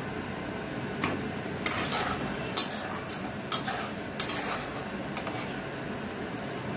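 Metal spatula stirring spice paste and potato pieces frying in oil in a kadai: a steady sizzle, with the spatula scraping and knocking against the pan about six times.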